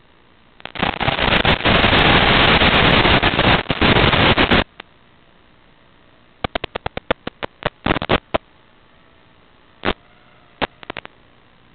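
Radio static from an analog FPV video link: a long burst of hiss from about half a second to four and a half seconds in, then scattered sharp clicks between about six and eight seconds and a few more near the end.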